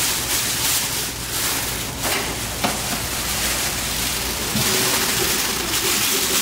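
A large plastic bag rustling and crinkling as crumbly, moist ramen dough is tipped from a noodle mixer's stainless trough into it, with a couple of light knocks and a steady low hum beneath.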